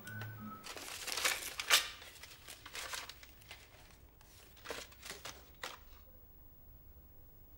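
A paper envelope being torn open and its card drawn out: a quick run of tearing and crinkling paper in the first two seconds, then lighter paper rustles, stopping about six seconds in.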